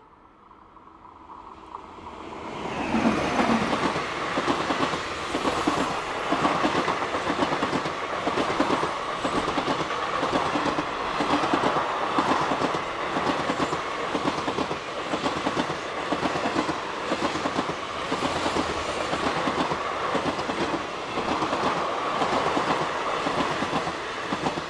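Express train passing at speed behind a WAP-5 electric locomotive. The sound swells as the locomotive goes by about three seconds in, then the coaches' wheels clatter rhythmically over the rail joints.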